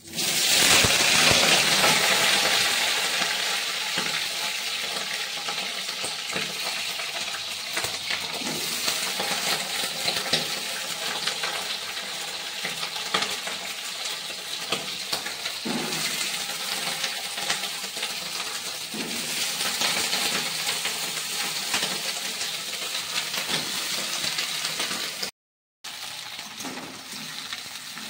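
Cauliflower florets frying in hot oil in an aluminium kadhai on a gas stove: a steady crackling sizzle, loudest at the start, with the metal spatula scraping and clinking against the pan as they are stirred. The sound cuts out for a moment near the end.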